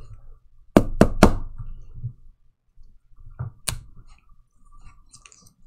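Trading cards and a plastic card holder being handled and tapped down on a tabletop: three quick sharp taps just under a second in, then two more a couple of seconds later, with faint ticks near the end.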